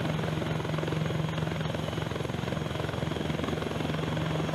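T129 ATAK attack helicopter running: a steady drone with a constant low hum.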